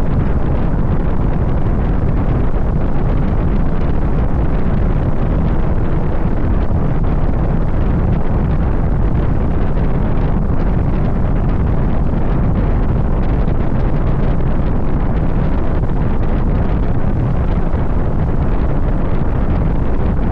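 Wind buffeting the microphone of a moving car, a steady low rumble that covers the engine and road noise beneath it.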